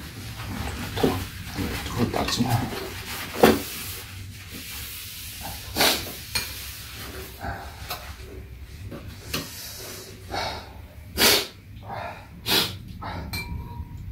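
Two people eating soup from bowls with metal spoons: scattered spoon clinks against the bowls mixed with slurping, sniffing and breathing, a few sharp sounds standing out several seconds apart.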